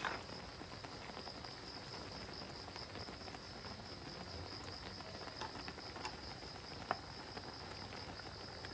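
Insects trilling steadily in a high, slightly pulsing chorus. A sharp click right at the start and a light tick about seven seconds in.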